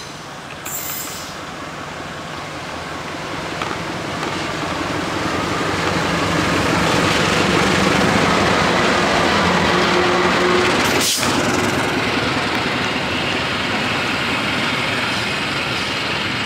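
Diesel-hauled passenger train passing close by, its running noise building to its loudest about halfway through and then easing. A brief sharp click comes about eleven seconds in.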